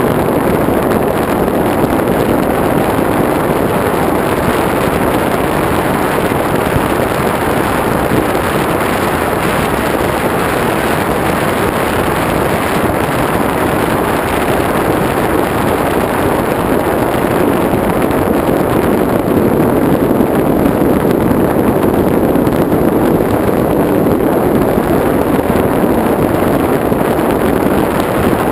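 Steady rush of airflow and propeller/motor noise heard from on board a TBS Caipirinha flying wing in flight, with wind buffeting the microphone. It is dense, without a clear tone, and grows slightly louder in the second half.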